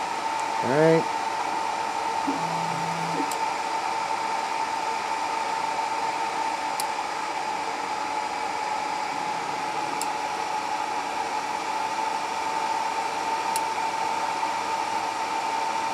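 3D printer cooling fans running with a steady whir and a constant whine near 1 kHz. Faint clicks come about every three and a half seconds, four in all, as the BLtouch probe pin taps the bed at each point of the automatic bed-leveling.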